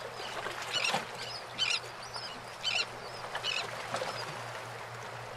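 Sea ambience: a steady wash of water with birds calling, four short calls about a second apart.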